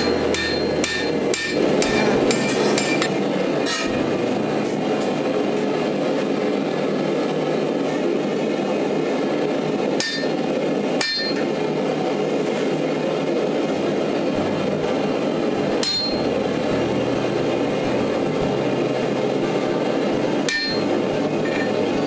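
Hammer blows on hot blade steel at the anvil: a quick run of ringing strikes in the first few seconds, then single strikes every few seconds. A steady rushing noise runs under them.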